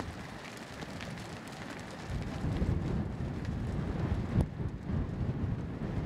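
Wind buffeting the microphone outdoors: a low rumbling noise that grows louder about two seconds in, with one sharp click near the middle.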